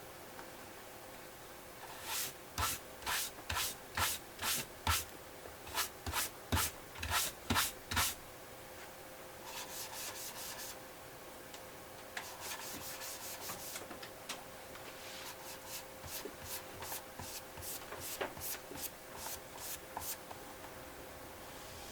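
Hand rubbing on the leather wallet, in firm back-and-forth strokes about two a second, then in lighter, quicker stretches of rubbing. A faint steady hum sits underneath.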